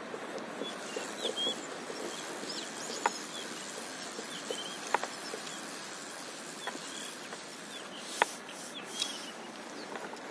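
Small waves lapping against a paddleboard: scattered little watery plinks over a steady hiss, with a few sharp taps at about three, five and eight seconds in.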